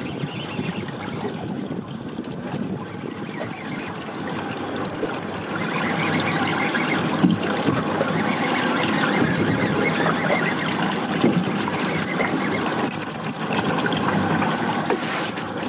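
Seawater sloshing and splashing against the hull of a drifting fishing boat, a steady wash that gets louder about five seconds in.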